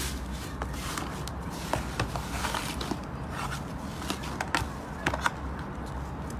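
Slime being pressed and worked by hand, giving irregular small wet clicks and pops, a few of them louder.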